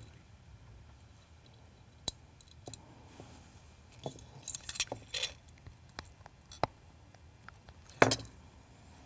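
Light, scattered clicks and clinks of small metal fishing tackle, a barrel swivel and line, handled on a tabletop while a short leader is tied on. There is a louder knock about eight seconds in.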